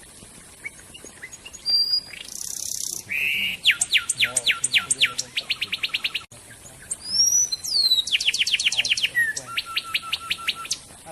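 Songbird singing: thin whistles and a harsh note, then two fast trills of sharp down-slurred notes, about ten a second, with gliding whistles between them.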